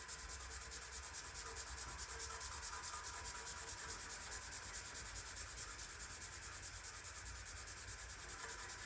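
Fast, even back-and-forth scrubbing strokes, several a second, cleaning the metal of a 1940s wringer washer.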